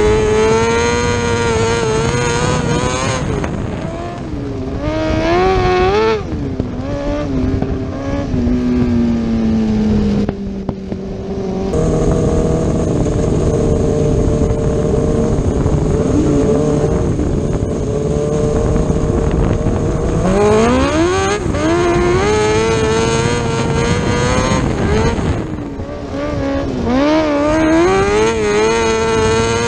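600cc motorcycle engine of a micro sprint car at race pace, heard from the cockpit: the revs climb and fall again and again as the car is driven through the turns. About halfway the note drops and holds steadier and lower for several seconds, then climbs and wavers again, with a short dip near the end.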